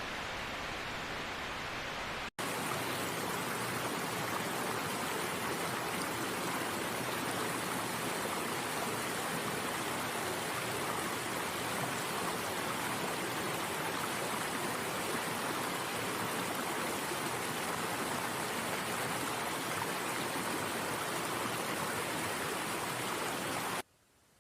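Steady rush of flowing stream water. The sound cuts out for a moment about two seconds in, resumes a little louder, and drops away sharply near the end.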